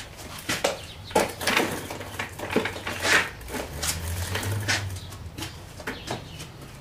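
Irregular clicks, clinks and knocks of hand tools and parts being handled, over a low steady hum.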